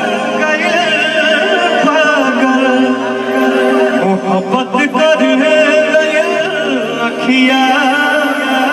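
Bhojpuri stage song: a voice singing a drawn-out, wavering melody over continuous instrumental accompaniment.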